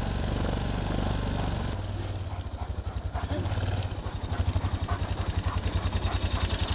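Small engine running steadily with a low, even throb that grows more pronounced about four seconds in.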